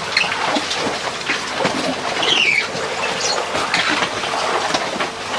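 Motor-driven arrastra running: large drag stones grinding and scraping through wet ore slurry on the stone floor, with the chains and steel sweep arm clanking and rattling in a continuous, irregular clatter. A short falling squeak comes about two seconds in.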